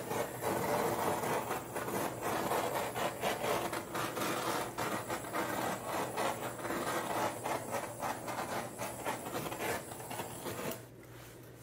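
Handheld butane micro torch burning with a steady hissing flame, passed over wet acrylic paint. It stops near the end.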